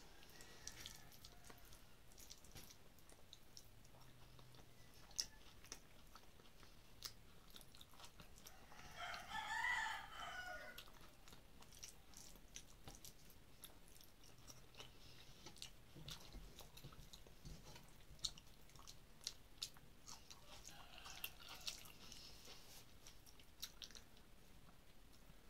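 Faint eating sounds: fingers mixing rice and curry on a steel plate, with soft clicks and chewing. A rooster crows once in the background about ten seconds in, the loudest sound, and again faintly about twenty-one seconds in.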